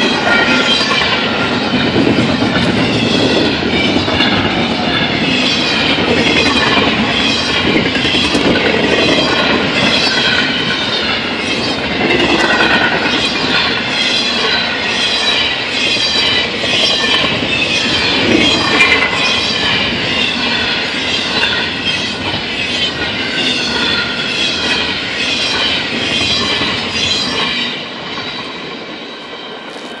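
A freight train of double-stack intermodal well cars rolls past at speed, with wheels clicking steadily over the rail joints and a high-pitched metallic wheel noise. Near the end the last cars pass and the sound drops away.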